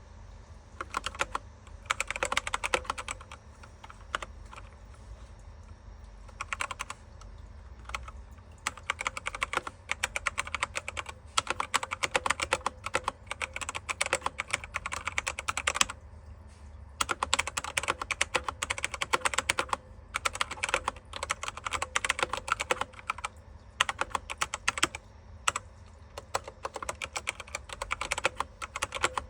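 Fast typing on a Machenike K500 mechanical keyboard: dense runs of key clicks in bursts of a few seconds, broken by short pauses.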